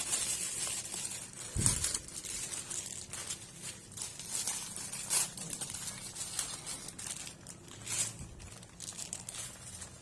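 Crinkling and tearing of small plastic misua noodle packets being opened, in irregular bursts, with a dull knock about a second and a half in.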